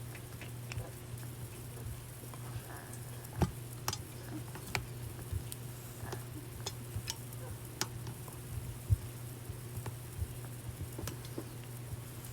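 Small clicks and light rustles from handling, scattered irregularly over a steady low hum, with two louder knocks about three and a half seconds and nine seconds in.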